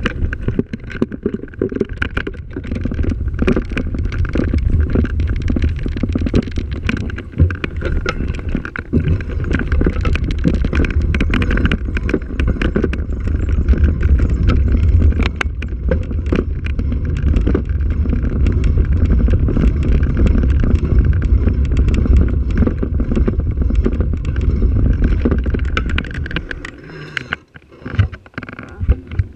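Heavy wind rumble on the camera microphone with constant rattling and crunching of tyres over a rough, leaf-covered dirt track during a fast ride downhill. The rumble and rattle die away near the end as the ride slows.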